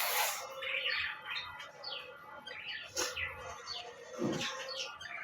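The tail of a forceful nose blow fades out in the first moment. Then small birds chirp repeatedly in the background, with a single click about three seconds in.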